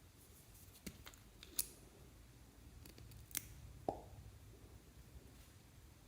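Clear slime being handled and pressed, giving a few short sticky pops and clicks about a second apart, over a faint low hum.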